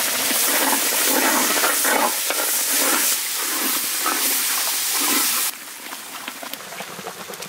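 Tomato and cashew paste sizzling loudly as it hits the hot oil and fried onion masala in a large pot, and is stirred in with a long ladle. The sizzle drops much quieter suddenly, about five and a half seconds in.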